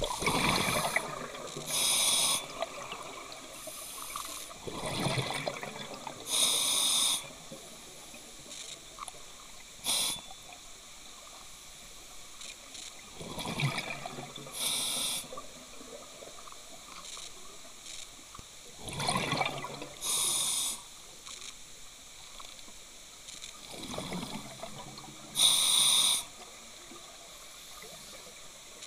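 Scuba diver breathing through a regulator underwater: a breath cycle about every five or six seconds, each with a short sharp hiss and a bubbling, gurgling burst of exhaled air.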